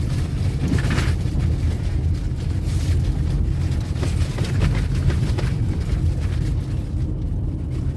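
Steady low rumble of a car's cabin while driving: engine and road noise.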